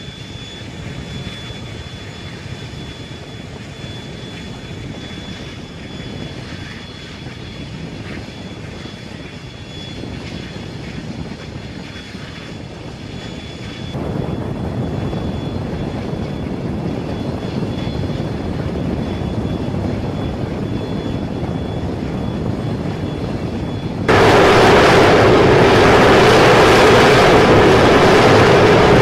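Jet engine noise on an aircraft carrier flight deck, from the X-47B unmanned aircraft's turbofan waiting on the catapult. The noise is steady, steps up suddenly about halfway through, then jumps to a much louder level a few seconds before the end as the aircraft powers up ahead of its catapult launch.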